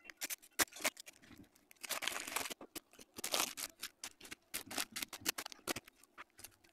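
Sped-up handling sounds of clay work on a plastic sheet: a rapid run of sharp clicks and crinkling rustles from the plastic and a thin tool trimming soft clay around a steel plate.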